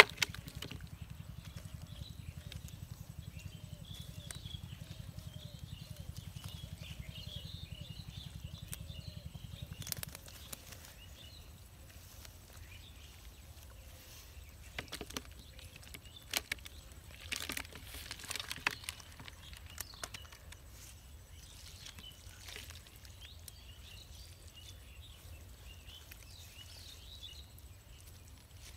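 Birds chirping in open country, with scattered rustles and light clicks from hands sorting through mud, weeds and small fish spread on a cast net; the clicks cluster loudest in the middle. A low steady hum underneath stops about ten seconds in.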